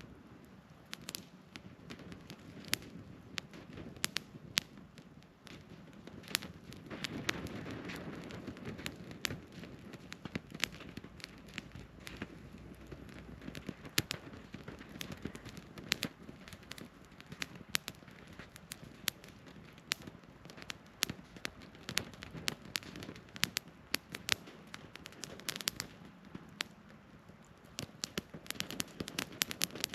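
Wood campfire burning, with a steady low rush of flame under frequent sharp, irregular crackles and pops of burning firewood.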